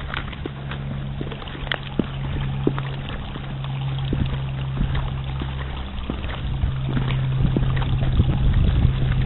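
A steady low engine-like drone runs throughout, with scattered sharp clicks.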